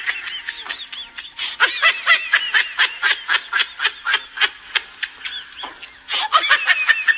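High-pitched laughter: a rapid run of repeated ha-ha pulses, about four or five a second, with a short break about six seconds in.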